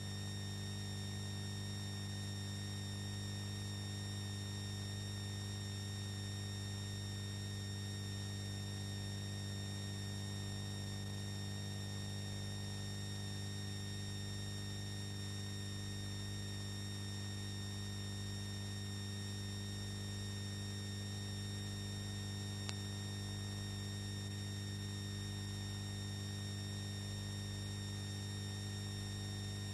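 Steady electrical mains hum and buzz with a thin high whine and hiss, unchanging throughout; a single faint click comes about three quarters of the way through.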